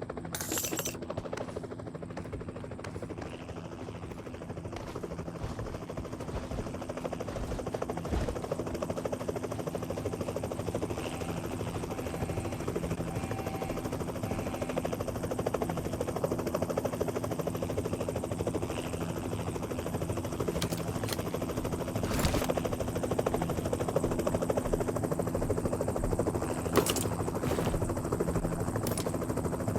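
Steady mechanical drone with a fast, even pulsing beat over a held hum that never changes pitch. A few sharp clicks or knocks come over the last ten seconds.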